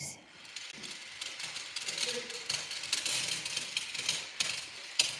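A plastic toy tool being worked against a toy workbench, giving a rapid run of clicks and rasps.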